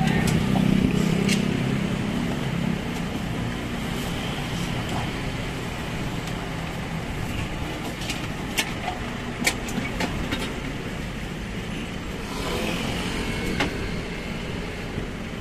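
Road traffic running past close by: a steady rumble of engines and tyres that is louder at the start and swells again near the end. A few light clicks of a spoon against the bowls come in the middle.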